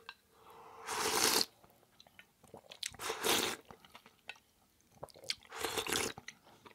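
Three loud slurps of Jin ramen broth and noodles from a bowl held to the mouth, each about half a second long, with small mouth clicks and chewing between them.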